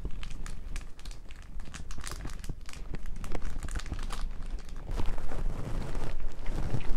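Hungry stomach gurgling: irregular crackly bubbling over a low rumble, louder from about five seconds in.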